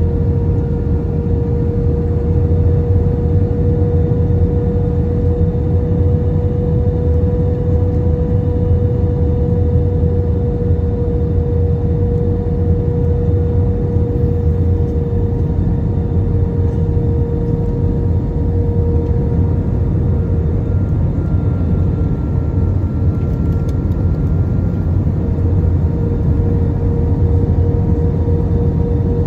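Airbus A320 cabin noise: a loud, steady drone of engines and airflow, with a steady humming tone over a deep rumble.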